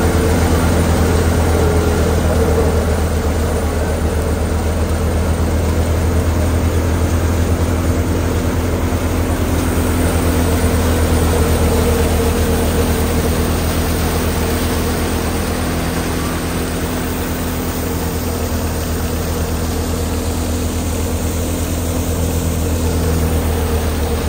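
Tractor-powered wheat thresher running steadily under load: a constant low engine drone and the whirr of the spinning thresher drum as it chops wheat straw and blows out chaff.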